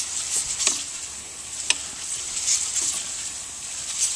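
Aerosol spray can hissing in repeated short bursts, spraying the heat-soaked fuel injectors of a Jeep Cherokee XJ engine.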